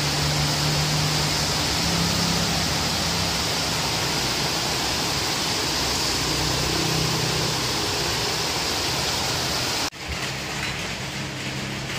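Heavy rain falling steadily on leaves and grass, a dense, even hiss. About ten seconds in it cuts off abruptly to a quieter, softer hiss.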